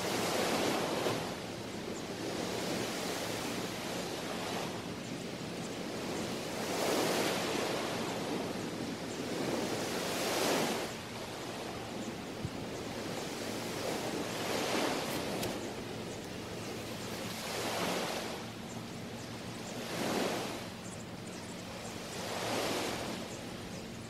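Small waves washing up on a sandy beach, a surge every three seconds or so with a steady hiss of surf between.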